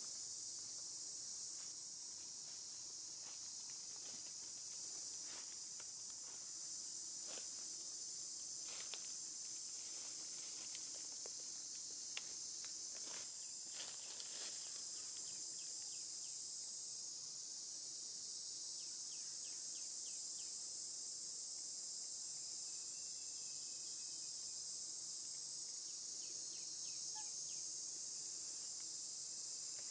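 A steady, high-pitched chorus of insects droning without a break, with faint scattered clicks.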